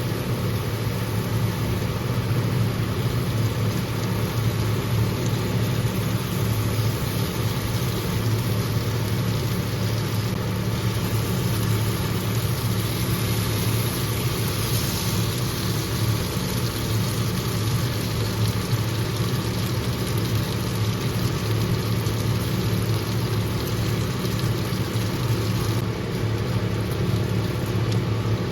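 A steady low mechanical hum from a running motor or fan, even in level throughout.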